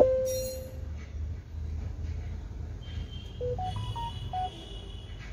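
Electronic tones from a tablet running a car diagnostic scanner app: a sharp click and a single beep right at the start, then about three and a half seconds in a quick run of five short notes stepping up in pitch and back down, over a low steady hum.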